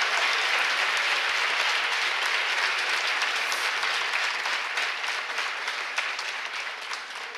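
An audience applauding, the clapping slowly dying away toward the end.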